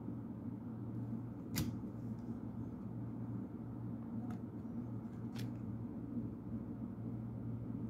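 Stiff foil trading cards being shuffled and flipped by hand, giving three short sharp clicks as the cards snap against each other, over a steady low hum.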